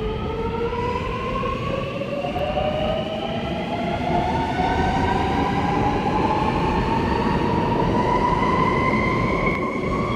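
Alstom Metropolis driverless metro train's electric traction motors whining through several pitches at once, all rising steadily as the train accelerates, over the rumble of its wheels on the rails.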